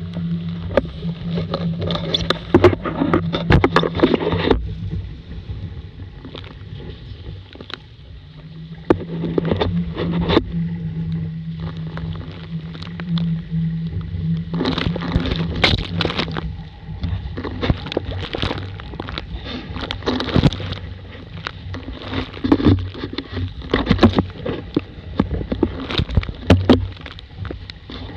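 Water rushing and splashing against the hull of a Laser sailing dinghy heeled hard in rough, windy water, with loud surges of spray every few seconds over a low steady hum.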